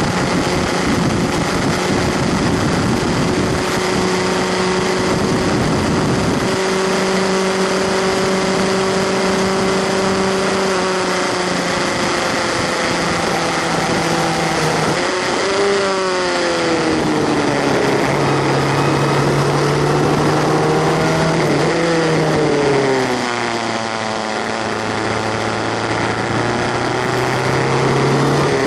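Onboard sound of a Skip Barber 2.0-litre formula race car's engine, loud and close, holding steady revs at speed for the first ten seconds or so. Around the middle the pitch drops in steps with quick falling-and-rising dips as the car brakes and downshifts, then the revs climb again in lower gears through the turns, under a steady rush of wind and road noise.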